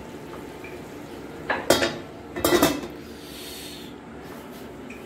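Metal cookware clattering: a steel ladle and aluminium lid knocking against a steel cooking pot in two short bursts of clinks, about a second and a half and two and a half seconds in.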